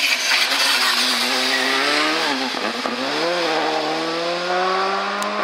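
Škoda Fabia rally car's engine under hard acceleration. The pitch drops briefly about halfway through, then climbs steadily, over a rushing noise that is strongest in the first second or two.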